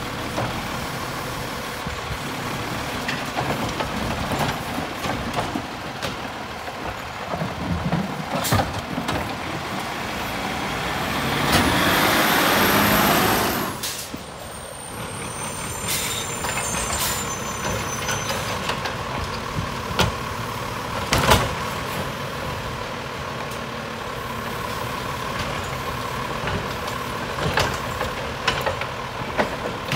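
Autocar refuse truck with a Heil Multitask side-loader body at work: the engine runs steadily under sharp knocks as carts are handled. A loud air-brake hiss about 12 seconds in lasts roughly two seconds.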